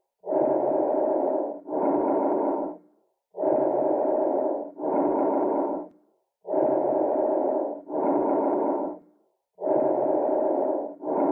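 Recorded bronchovesicular breath sounds as heard on auscultation: about four breaths, each a rushing noise on the breath in and another on the breath out, the two phases about equal in length with a short gap between them and a longer pause before the next breath. This equal 1:1 inspiration-to-expiration pattern is the normal bronchovesicular sound, a mix of bronchial and vesicular sound heard over the upper third of the chest.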